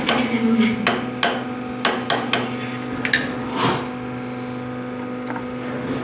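A series of sharp knocks, about eight in the first two and a half seconds, from work on ceiling fan rotors at a CNC machine, over the machine's steady hum; a short rushing noise comes a little past halfway.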